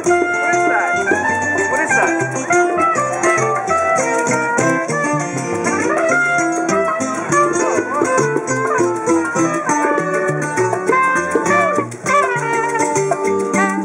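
Small live acoustic band playing Latin-style music: an acoustic guitar strumming over a bass line, with a pair of maracas shaking.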